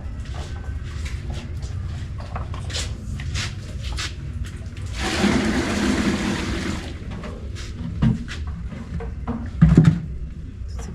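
Water rushing out in a burst for about two seconds midway, among scattered clicks and knocks over a low steady rumble, with two loud thumps near the end.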